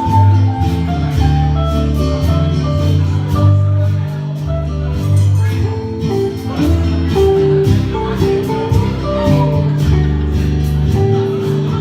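Instrumental break of a country-folk band song: guitar accompaniment under a melody of short plucked notes and a steady bass line.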